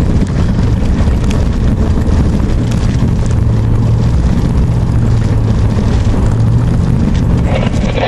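Truck cab noise while driving on a muddy, rutted dirt road: a steady engine drone and low road rumble, with scattered knocks and rattles from the rough surface.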